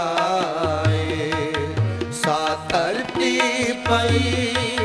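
Sikh shabad kirtan: a male ragi singing the Gurbani refrain in a wavering melody. Harmonium tones hold steady beneath him, and a tabla keeps the rhythm with deep bass strokes.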